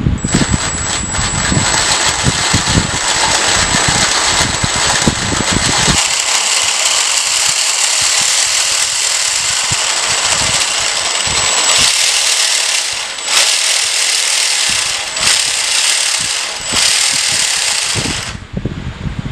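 A2212-type brushless outrunner motor spinning a plastic spur-gear reduction on a home-made RC car wheel, running loudly with a steady high whine and gear rattle. About twelve seconds in, the whine drops out and the motor is run in several short bursts, then it stops near the end.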